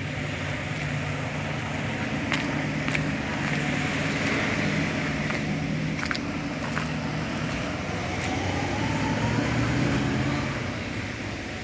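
A motor vehicle's engine running with a steady low hum and a few light clicks; about eight seconds in it grows louder with a faint rising whine, then fades near the end.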